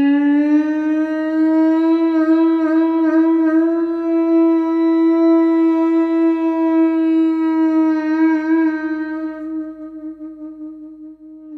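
A single long note blown on a horn-like wind instrument. It rises slightly in pitch at first, then holds steady, and fades and wavers over the last few seconds.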